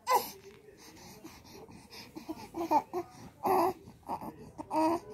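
Young baby fussing with a few short, high-pitched vocal sounds and breaths. The two loudest come in the second half.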